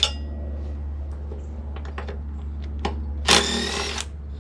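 Light clicks and taps of small metal engine parts being handled, over a steady low hum, with one short louder rush of noise about three seconds in.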